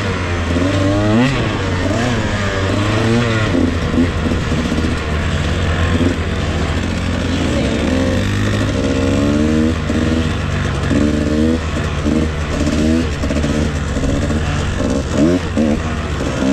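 Dirt bike engine riding a trail, its pitch climbing and dropping back over and over as the throttle is worked and gears change.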